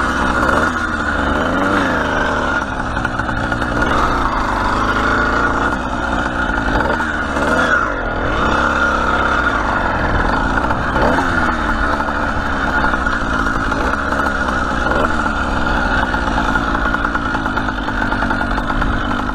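Two-stroke motorized-bicycle engine running under way, its pitch rising and falling several times with the throttle.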